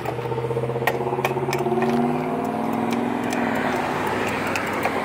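Road traffic: a motor vehicle's engine running as it goes by, its hum dropping in pitch midway, with a few sharp clicks.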